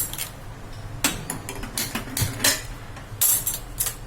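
Irregular sharp metallic clicks and clanks from a metal cooking pot being handled on a stove, with a longer rattle about three seconds in.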